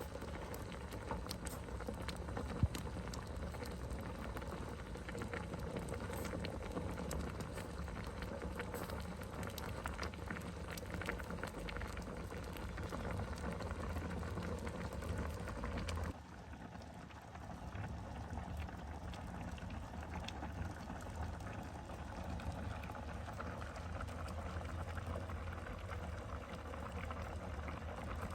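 Pot of beans and bacon bubbling and sizzling steadily on the heat, close to boiling over. A single sharp click comes a few seconds in, and the sound drops abruptly about sixteen seconds in.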